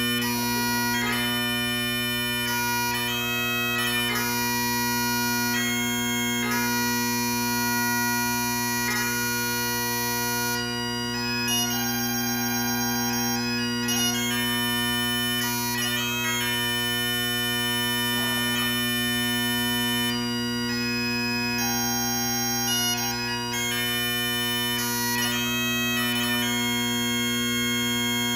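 Bagpipes playing a tune over steady, unbroken drones, the melody dotted with quick grace notes.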